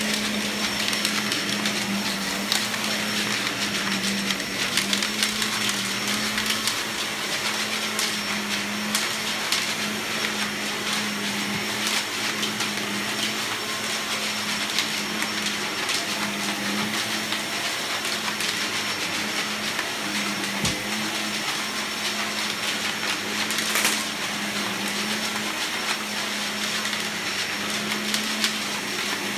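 Shark bagless vacuum cleaner running on carpet: a steady motor hum and suction hiss, with frequent clanking and clicking from debris whirled around in the top of the dirt cup by its cyclone.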